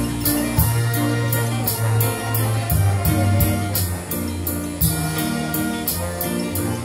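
High school marching band playing live, with brass and wind chords over a steady drum beat.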